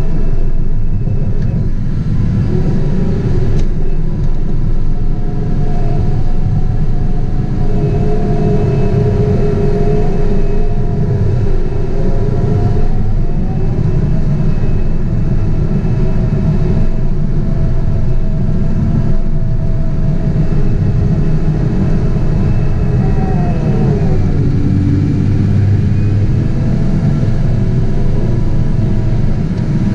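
Caterpillar 973C track loader's diesel engine running steadily under load, heard from inside the cab, a deep rumble with a steady mechanical whine over it. A little past two-thirds of the way in, the engine note dips and then comes back up.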